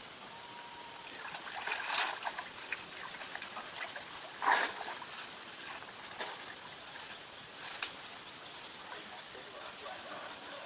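Water splashing: two distinct splashes about two seconds and four and a half seconds in, over a steady background wash, with a sharp click near the end.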